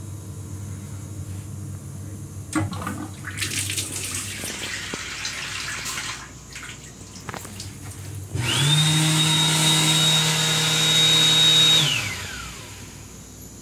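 An M7 railcar washbasin's sensor faucet runs water into the sink for a few seconds. Then the built-in hand dryer's blower starts with a steady high whine and runs for about three and a half seconds before spinning down with a falling pitch.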